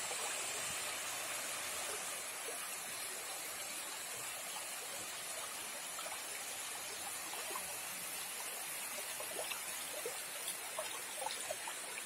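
A small mountain stream trickling over rocks, running low after weeks without rain, with only a thin flow left at the waterfall; a steady rush of water with a few faint clicks and gurgles near the end.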